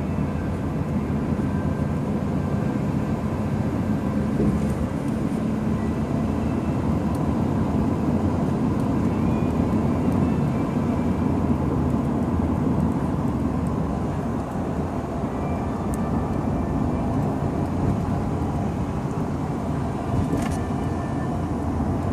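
Steady road and engine noise inside the cabin of a moving car, with a brief click near the end.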